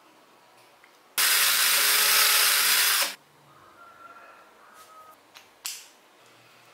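A handheld electric power tool runs in one loud burst of about two seconds, starting and stopping abruptly. A few small handling clicks follow.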